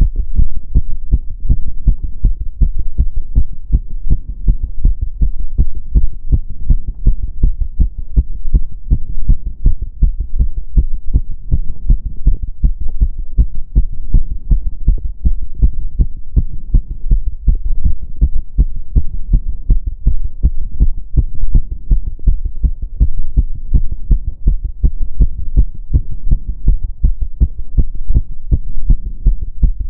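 A woman's heart beating fast during step-up exercise: a steady, rapid run of low thudding beats, recorded close up.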